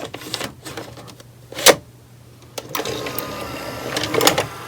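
A 1986 Samsung VT-311TA VCR taking in a videocassette. A few clicks and one sharp clack as the cassette is pushed into the slot, then the loading motor whirrs for about two seconds with mechanism clicks near the end as the tape is drawn in. This is a sign that at least some of the belts still work.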